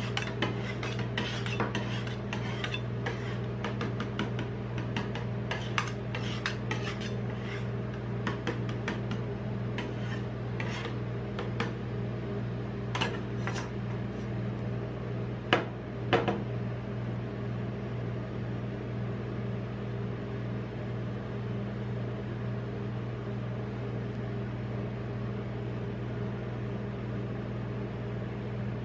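Steel spatulas chopping and scraping half-frozen ice cream mixture on the metal cold plate of a rolled-ice-cream machine, a rapid run of sharp clicks and scrapes. A few single taps come around the middle, then only a steady low hum from the machine's refrigeration unit remains.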